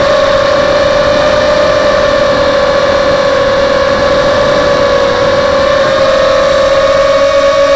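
Small FPV quadcopter's brushless motors (SunnySky X2204 2300KV on 5x3 props) whining at a steady high pitch that drifts slightly up and down with throttle, over wind rush on the onboard camera's microphone.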